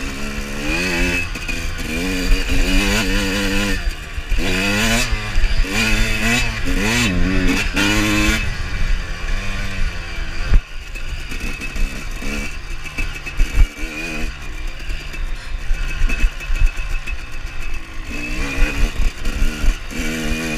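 Two-stroke Suzuki RM motocross bike being ridden, its engine revving up and down repeatedly as the throttle is worked. It eases off about halfway, with a sharp knock and some clatter, then revs up and down again near the end.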